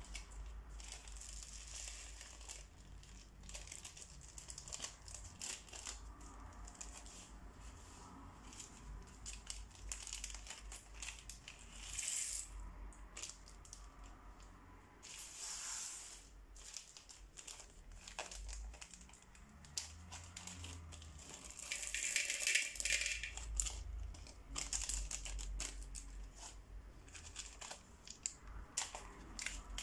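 Small plastic zip-lock bags crinkling as hands open and handle them, with little plastic beads and foam balls spilling into a glass bowl in many light clicks. Louder bursts of crinkling come a third of the way in, about halfway, and around three quarters of the way through.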